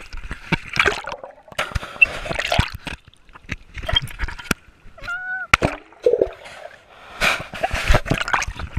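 Shallow water splashing and sloshing around an action camera as it is swept through the water and dipped under the surface, in irregular bursts with short gaps. A brief child's voice about five seconds in.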